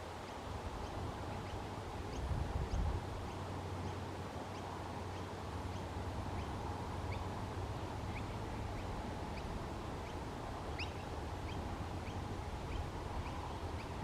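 Small birds chirping in short, high, sharp notes, a few each second, over a steady low outdoor rumble. The rumble swells briefly about two seconds in.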